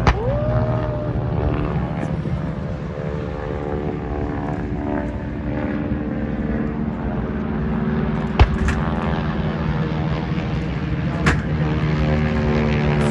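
Radial-engine propeller warplanes droning steadily as they fly through the display, with two sharp bangs from pyrotechnic explosions, about eight and eleven seconds in.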